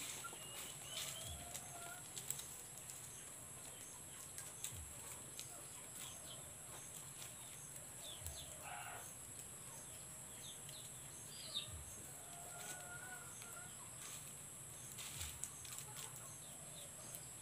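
Quiet background with faint, scattered bird chirps and light rustling of dried leaves being handled.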